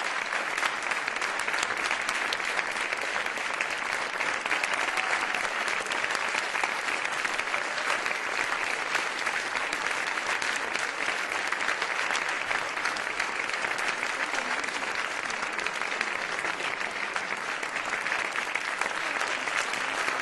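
A theatre audience applauding steadily, many hands clapping together without a break.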